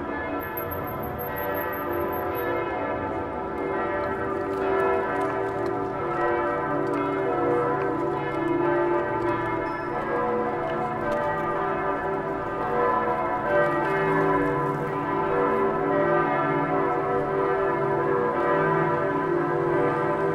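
Several church bells ringing together in a continuous peal, their tones overlapping without pause. The peal grows slightly louder about four seconds in.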